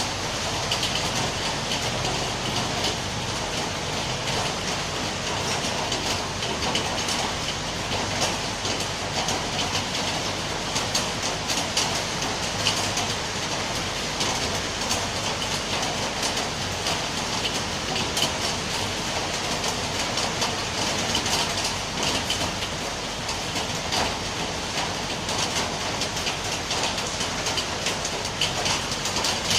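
Steady heavy rain falling, a dense, unbroken patter of drops on surfaces.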